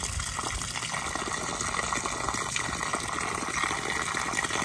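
Water gushing in a steady stream from the cooling-system drain valve of a 1927 American LaFrance fire engine and splashing below it. The cooling system is being flushed of brown, rusty water.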